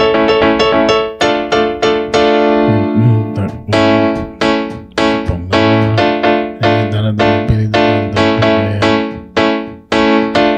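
Electronic keyboard with a piano sound playing a merengue piano intro, beginning on A major: short chords repeated in a quick, even rhythm, with low bass notes from the left hand coming in about two and a half seconds in.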